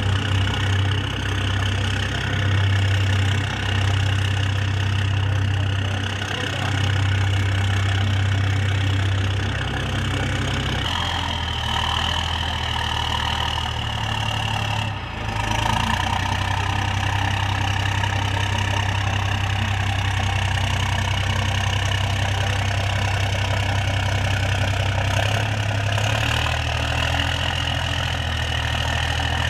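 Amphibious Combat Vehicle's diesel engine running at low speed, a steady low drone with a whine above it; the engine note changes about eleven seconds in.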